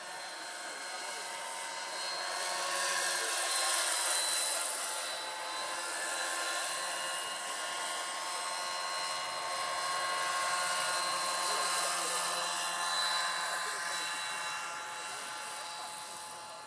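Electric 700-size scale model helicopter (Lockheed XH-51 replica, 1.6 m rotor) in flight: a steady whine from its electric motor and rotors, swelling louder about three to five seconds in and again about ten to twelve seconds in as it passes closer.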